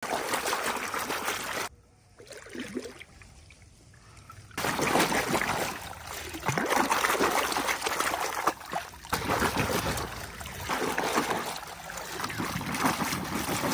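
Muddy water splashing and sloshing as plastic toy vehicles are swished through it by hand, with a much quieter stretch from about two to four and a half seconds in.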